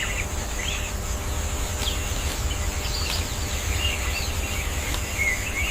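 Wild birds chirping and whistling in short, scattered calls over a steady high-pitched buzz and a low rumble. The ambience starts abruptly at the outset.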